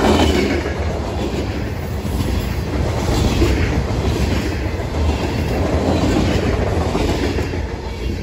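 Covered hopper cars of a fast-moving CSX freight train rolling past, their steel wheels running on the rails in a loud, steady rumble. The noise dies away near the end as the last car clears.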